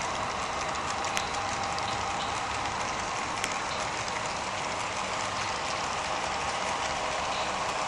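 HO-scale model freight train rolling along the track: a steady whirring rush of wheels on rail, with a few faint clicks.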